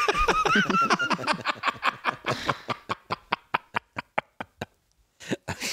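Laughter: a run of short, even laugh pulses that slows down and dies away about four and a half seconds in, followed by a brief chuckle near the end.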